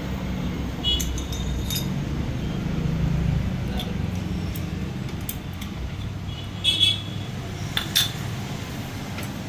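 Metal clinking: a few short, sharp ringing taps, two near the start and a quick cluster late on, over a steady low rumble.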